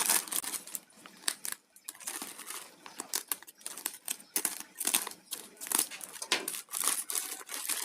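Courier packaging being opened by hand: irregular crinkling and rustling with short tearing sounds.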